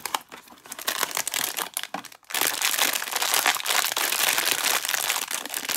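Light crackling as a small cardboard blind box is opened. About two seconds in, a silver foil blind-box bag starts crinkling loudly and continuously as it is handled.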